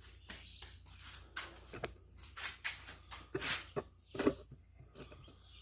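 Irregular clicks, knocks and scrapes of hand tools on the air compressor's metal parts as its fan is being taken off.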